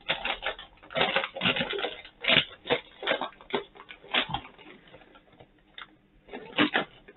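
Brown paper snack bag being opened and crinkled by hand: irregular crackling rustles, busiest in the first four seconds or so, then thinning to a few scattered crinkles.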